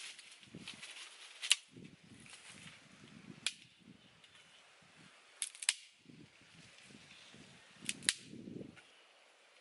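A wooden stick being bent and split by hand, giving a series of sharp snaps and cracks a couple of seconds apart, some in quick pairs, with soft rustling and scraping of the stick between them.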